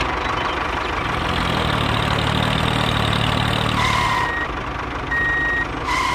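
Diesel tractor engine idling steadily, with a couple of short high beeps about four seconds in and again near the end.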